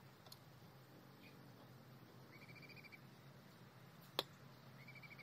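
Near silence: a quiet room with a steady low hum, twice a short, faint, high, rapid chirping trill, and a single sharp click about four seconds in.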